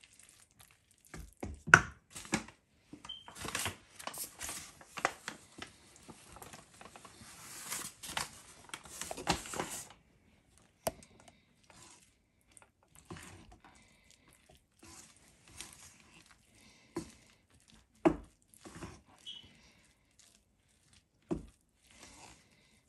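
Metal spoon stirring flour and water into a stiff dough in a stainless steel bowl: a crumbly, rustling scrape with scattered sharp clinks of the spoon against the bowl. The scraping is densest for several seconds early on, then thins to occasional clinks and scrapes.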